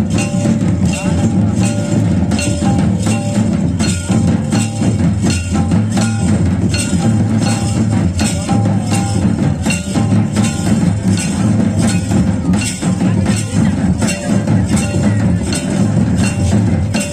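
Santali dance music: two-headed barrel hand drums (madal) beat a quick, steady rhythm, with short held melody notes above them.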